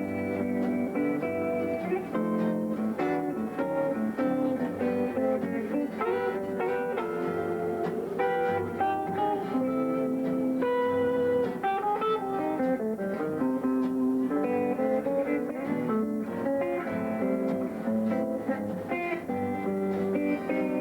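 Thumbpicked guitar playing an instrumental in the Muhlenberg County style: a steady pulse of bass notes under picked melody notes.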